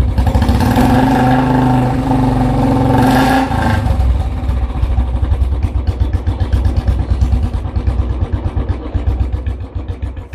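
Royal Enfield Bullet's single-cylinder engine running through its silencer: held at raised revs for about the first three and a half seconds, then dropping back to a slower, pulsing thump that fades near the end.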